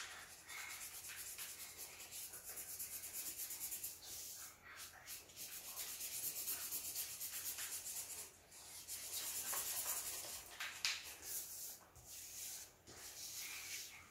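Black felt-tip marker scribbling fast back and forth on paper over a cardboard backing, colouring in a solid area. The scratching comes in quick runs of strokes broken by short pauses.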